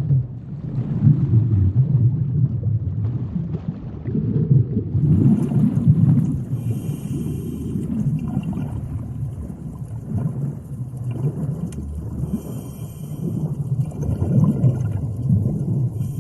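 Low, uneven rumbling that swells and fades every second or two.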